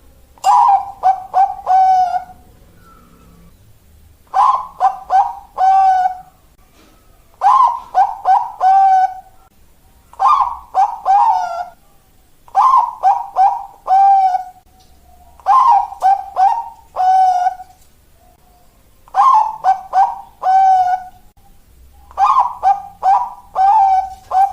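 Zebra dove (perkutut) singing its cooing song: a phrase of four or five quick notes ending on a longer held note, repeated eight times about every three seconds.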